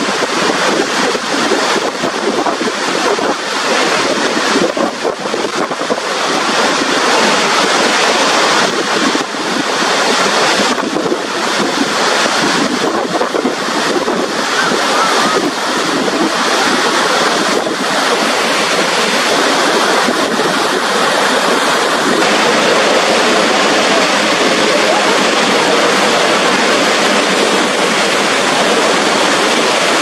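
Niagara Falls: a loud, steady rush of water plunging over the brink and crashing into the river below.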